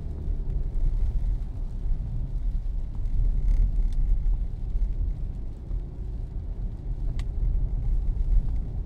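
Steady low road rumble inside a car's cabin while driving on a wet road, with a couple of faint clicks.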